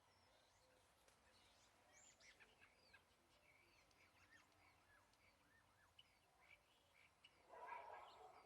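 Faint chirps of wild birds: many short, quick calls that sweep up and down in pitch. A louder, lower-pitched call comes near the end.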